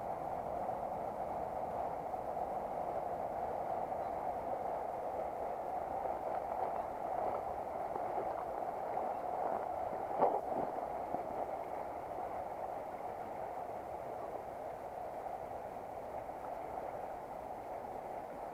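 Steady rush of a small river running over stones close by, with one brief knock about ten seconds in.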